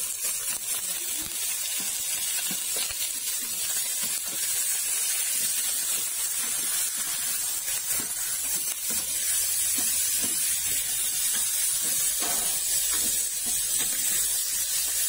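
Raw pork chunks sizzling in hot oil with sautéed garlic and onion in a stainless steel pot, a steady hiss, with a few light clicks of a spatula moving the meat.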